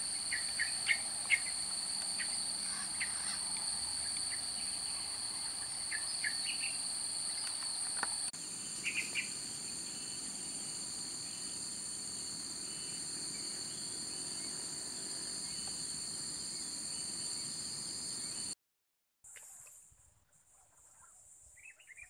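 Steady high-pitched drone of insects, two even tones, with short bird chirps scattered through the first half. The drone shifts slightly about a third of the way in and cuts off abruptly near the end.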